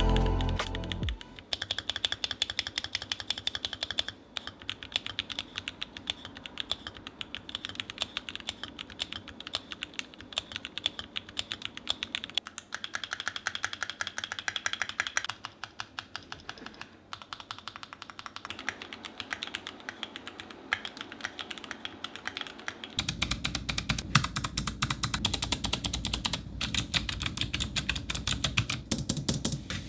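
Rapid, continuous typing on mechanical keyboards in a sound test. The clacking changes character several times, and about two-thirds of the way through it takes on a much deeper, fuller low end. Background music fades out in the first second.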